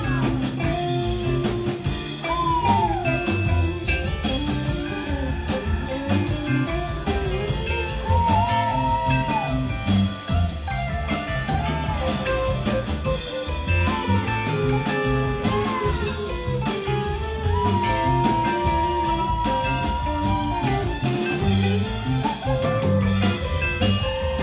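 Rock band playing live: electric guitar lead with bent notes, one held for a few seconds past the middle, over bass guitar and a drum kit keeping a steady beat, with no singing.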